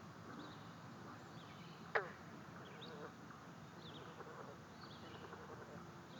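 Faint outdoor ambience with small birds chirping now and then in the distance. About two seconds in comes one sharp, quick sound that sweeps steeply down in pitch.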